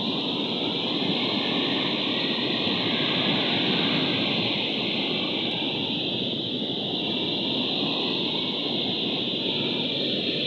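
Steady rushing noise of surf washing onto a debris-strewn beach, mixed with wind on the microphone.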